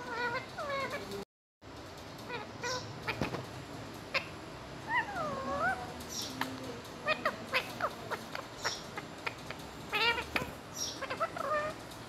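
Indian ringneck parakeet vocalizing: a few drawn-out calls that glide up and down in pitch, near the start, around five seconds in and near the end, with quick short chirps and clicks between them. The sound drops out completely for a moment just after a second in.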